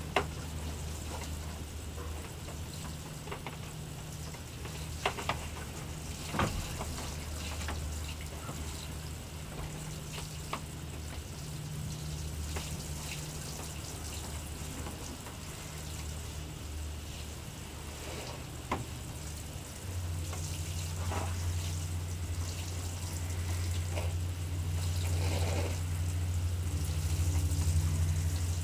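Water sprinkling steadily from a galvanized metal watering can's rose onto loose seeded soil, with a few light knocks. A steady low hum runs underneath and gets louder about two-thirds of the way through.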